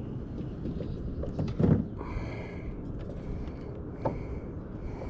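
Steady low rumble of wind and water around a fishing kayak, with a dull knock on the kayak about one and a half seconds in, followed by a short high-pitched call and a few faint ticks.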